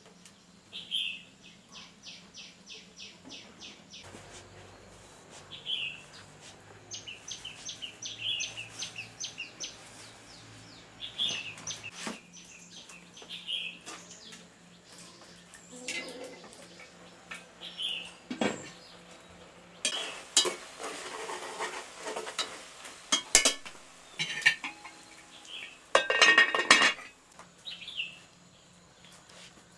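A bird gives a short chirp every couple of seconds, with quick ticking trills in the first third. In the second half there is a clatter of pots, dishes and utensils knocking together.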